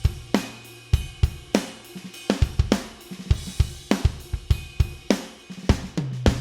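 Sampled acoustic drum kit from a Pearl Mimic Pro drum module, played from electronic pads: a groove of kick, snare and hi-hat with a cymbal hit about every second and a quarter. A low ringing drum sounds at the start and again near the end.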